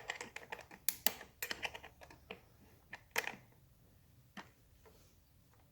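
Irregular small clicks and taps of parts being handled during hand work on the motorcycle's battery wiring, coming quickly at first and thinning out after about three and a half seconds.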